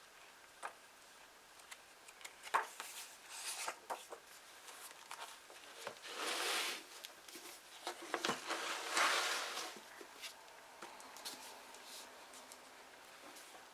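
Paper pages being turned and handled: a few rustling page turns, with light taps and clicks in between.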